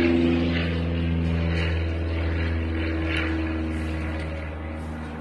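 A steady, low, buzzing engine drone, loudest near the start and slowly fading.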